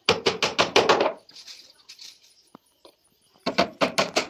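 Rapid hammer blows on a plywood board, about six or seven a second, in two runs: one lasting about a second at the start, and another starting just before the end.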